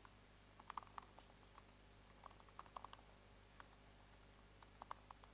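Faint tapping of MacBook laptop keyboard keys, in a few short bursts of clicks as a command is typed.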